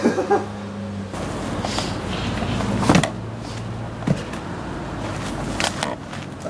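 Three sharp thumps a second or so apart from a man throwing high kicks, over a low steady rumble.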